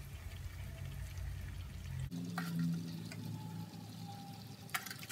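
Chicken sizzling faintly in a tawa pan on low heat, with a few light clicks as onion rings are laid around the edge of the pan.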